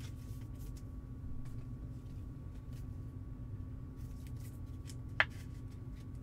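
Faint rustling and light clicks of a trading card being handled and slid into a clear plastic top-loader, with one sharper click about five seconds in, over a steady low hum.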